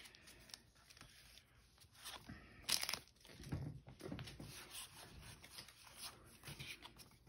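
Light handling noise of an opened foil booster pack and its trading cards: the wrapper crinkling while the cards are pulled out and fanned by hand, with one sharper crackle about two and a half seconds in.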